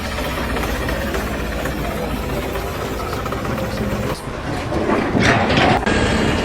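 A steady low engine rumble from heavy machinery. Just after four seconds it dips and cuts, and a louder rushing noise follows.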